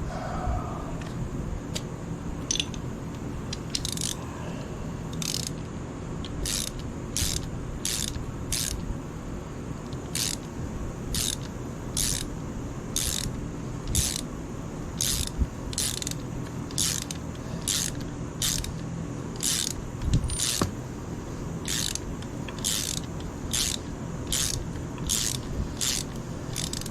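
Hand ratchet wrench worked in short strokes, with a quick burst of ratchet clicks on each return stroke. The bursts are sparse at first, then come regularly about one and a half times a second, over a steady low hum.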